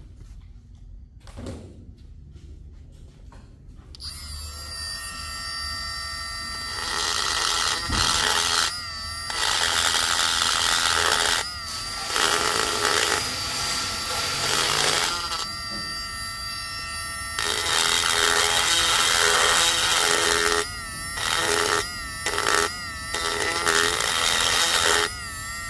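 A high-speed rotary tool with a burr bit starts about four seconds in and whines while grinding into the cast-iron Toyota 22R block. It cuts in repeated bursts of a few seconds, and its pitch wavers as the burr bites. This is clearancing the block at the oil galley so the stroker connecting rods can swing past.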